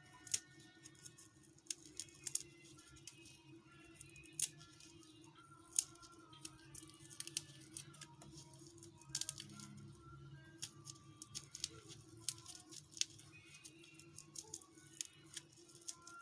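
Irregular small clicks and snaps of mantis shrimp shells being cut and peeled apart by hand, over soft background music.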